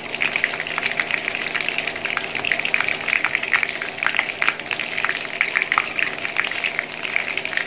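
Chicken wings frying in plenty of hot oil in a pan, a dense, steady crackle and spatter of sizzling.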